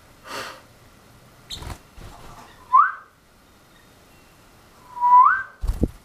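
A man whistling two short rising notes about two and a half seconds apart, each sliding up, the second held low for a moment before it rises. A soft rustle near the start and a dull thump just before the end.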